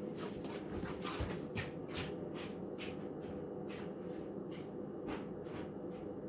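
Miller E3 electric furnace running with a steady low hum. Irregular short scratchy rustles sound over it about twice a second, stopping near the end.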